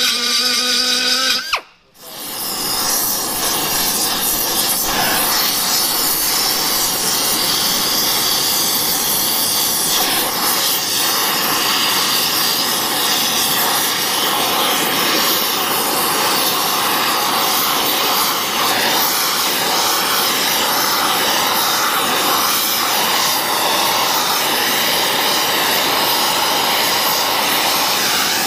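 A small air die grinder with a carbide burr whines briefly and cuts off. Then an oxy-fuel torch flame hisses steadily while a cast iron casting is braze-welded with a filler rod.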